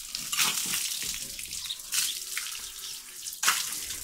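Water poured from a bucket splashing over a bull's back and running off, with three heavier splashes: about half a second in, at two seconds, and near the end.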